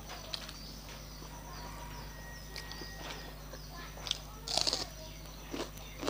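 Close-up mouth sounds of someone eating rice with her fingers: scattered wet chewing clicks and lip smacks, with a louder burst of smacking about four and a half seconds in as a handful of rice goes into the mouth.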